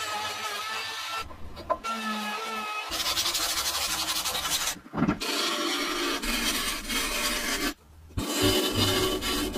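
Woodworking on a wooden block in quick succession: an electric hand planer running over the wood, then the block being sanded with a steady rasping rub, then a wood lathe spinning it. The sound breaks off briefly between each.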